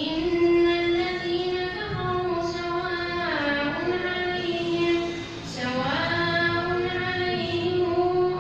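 A boy's voice reciting the Quran in slow, melodic chanted recitation (tajweed), holding long notes. The pitch glides down about three and a half seconds in and climbs back up after a brief break near six seconds.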